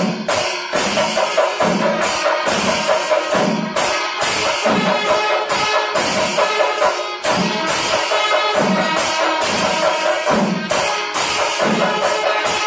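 Percussion-led music with a steady beat: drums thud in a regular rhythm under repeated cymbal-like clashes, over a sustained reedy tone held throughout.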